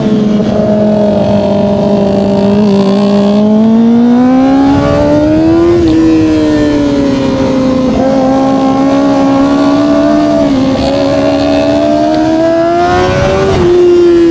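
Kawasaki ZX-25R SE inline-four engine through an Austin Racing aftermarket exhaust, riding under power: the revs climb steadily, drop sharply about six seconds in at a gear change, climb again, and drop once more near the end.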